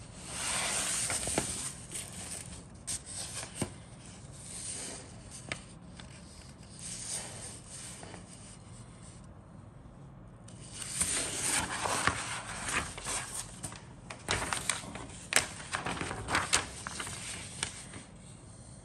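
A paper instruction sheet rustling and crinkling as its pages are handled and turned, with sharp crackles of the paper. One bout of rustling comes right at the start, and a longer, busier one fills the second half.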